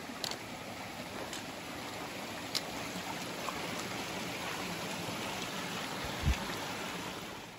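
Small rocky creek running and trickling over stones, fading near the end. A few light clicks of trekking poles on rock and one low thump about six seconds in.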